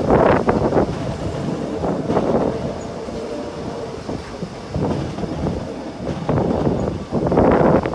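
A train running along the track: a loud, continuous rumble with several uneven louder rattling swells, the longest near the end.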